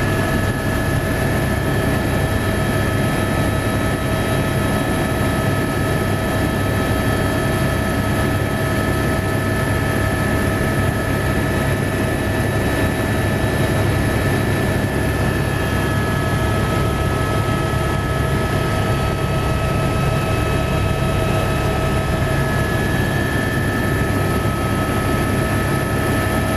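Helicopter in flight, heard from inside the cabin: a steady, loud drone of engine and rotor with several constant high whining tones over it.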